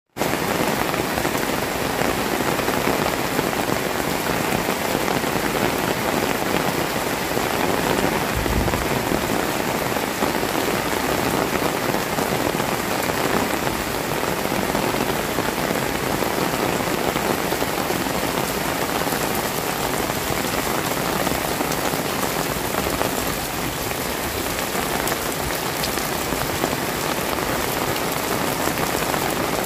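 Heavy rain falling steadily on the paved alley and roofs, with water pouring off the roof edges.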